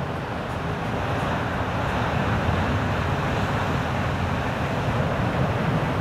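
Steady rushing roar of wind and big breaking ocean surf.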